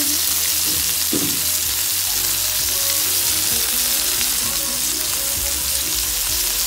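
Whole bream, coated in cornstarch, shallow-frying in olive oil in a pan with a steady sizzle, as the fish are crisped before stewing.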